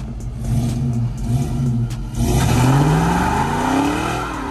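LS-swapped V8 car engine running with an uneven, pulsing note, then revving up as the car pulls away: the pitch climbs steadily from about two seconds in, dips briefly near the end and rises again.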